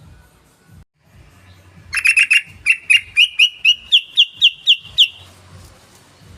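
Yellow-vented bulbul (trucukan) calling: a run of about fourteen bright, clipped notes over some three seconds. The first few come in a quick burst, then the rest follow evenly spaced at about four a second, each a short upward flick.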